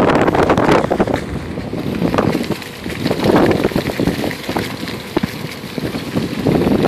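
Wind buffeting the microphone of a camera riding on a moving bicycle, surging and easing, mixed with the rolling of tyres over a leaf-strewn path and scattered small clicks and rattles.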